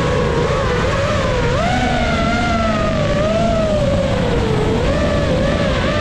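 FPV drone's motors and propellers whining, the pitch sliding up and down as the throttle changes.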